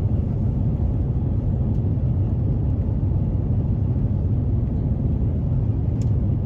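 Airliner cabin noise: a steady low rumble of engines and air systems.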